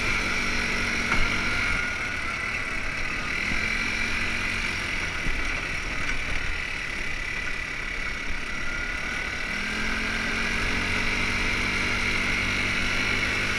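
Off-road buggy's engine running as it drives along a gravel track, easing off for a few seconds and picking up again about two-thirds of the way through.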